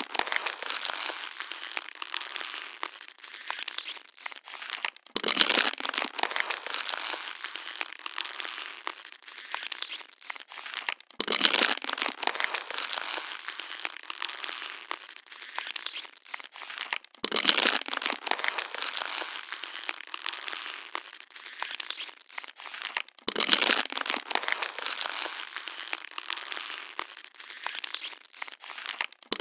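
Plastic water bottle being crushed: a loud crunch about every six seconds, each followed by several seconds of crinkling and crackling that fades, with a brief gap before the next crunch.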